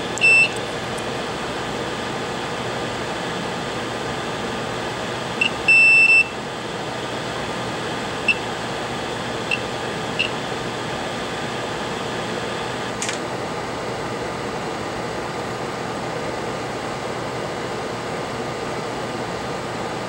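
Multimeter continuity beeper sounding as its probes touch a soldered jumper on a repaired connector pad: a short beep at the start, a longer beep about six seconds in, then a few brief chirps as the probes make and break contact. The beep signals that the connection is good. A steady background hiss runs underneath.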